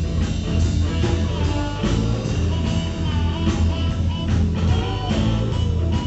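Live blues band playing a boogie: electric guitars over a steady drum beat, with saxophone and harmonica carrying long, bending melody notes.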